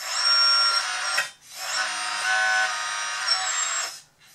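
Hydraulic pump of a Kabolite K966 RC wheel loader whining as the bucket and lift arm are worked, in two spells about a second and two seconds long with a short break between.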